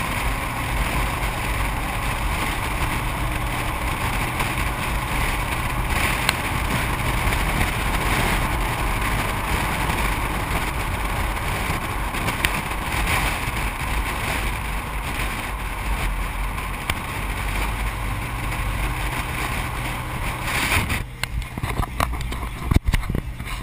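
Steady wind rush and tyre-on-road noise on an action camera mounted on the outside of a car driving at road speed. About 21 s in the noise drops away, and a few sharp knocks and clicks follow as the camera is handled.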